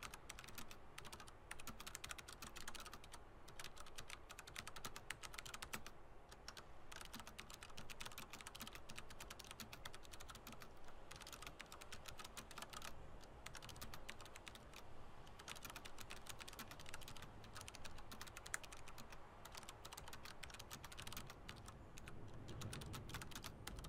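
Typing on a computer keyboard: runs of rapid keystrokes broken by short pauses every few seconds.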